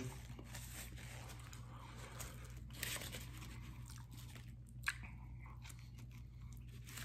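A man chewing food with his mouth close to the microphone: faint mouth sounds and small crunches, with one sharper click a little before five seconds in.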